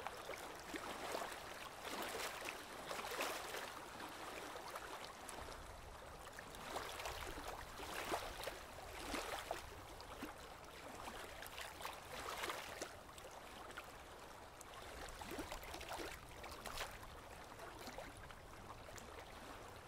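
Faint, irregular splashing and lapping of water.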